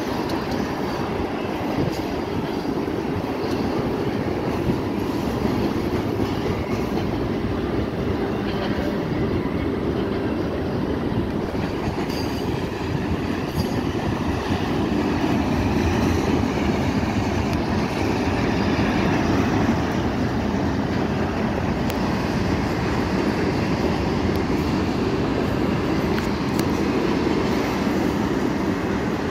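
Double-stack container well cars of a freight train rolling past: a steady rumble of steel wheels on rail.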